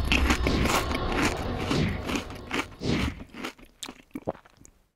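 Crunching and crackling noise, dense at first, then thinning to scattered clicks that die away near the end.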